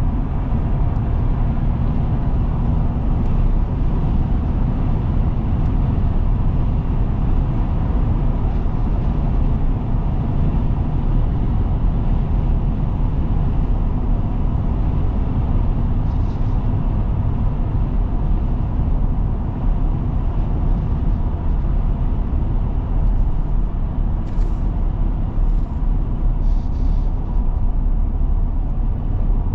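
Steady engine and road noise inside the cab of a 2024 Ford Super Duty pickup with the 7.3-litre gas V8, cruising at highway speed.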